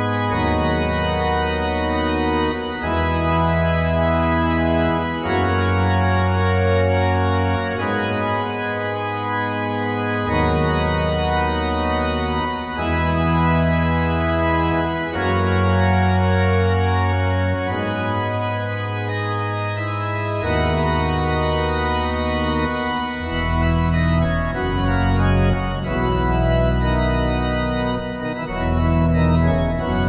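Pipe organ playing slow, sustained chords, with deep bass notes changing every two or three seconds; from about two-thirds of the way in the bass drops lower and fuller.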